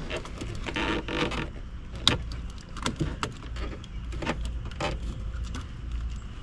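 Scattered clicks, knocks and rattles of plastic wiring connectors and steering-column parts being handled and pushed into place, with one sharp click about two seconds in.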